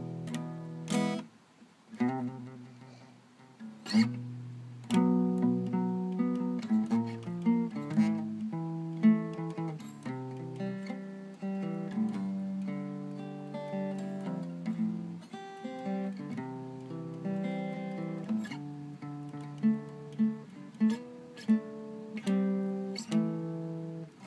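Acoustic guitar played by hand, chords strummed and picked with the notes ringing and changing, a few sharp strums standing out; it drops out briefly about a second in.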